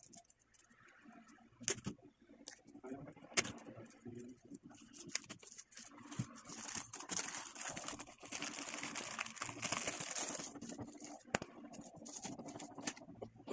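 Thin plastic barrier sleeve crinkling and rustling as it is pulled over and wrapped around a tattoo machine and its cord, with scattered small clicks and taps. The rustling thickens from about six seconds in and eases near the end.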